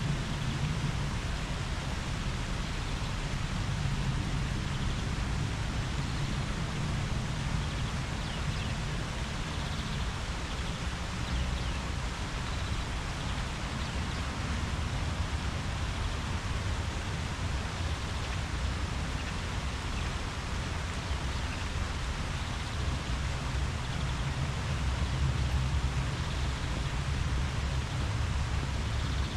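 Tree leaves rustling steadily in the wind, an even hiss with a low rumble underneath.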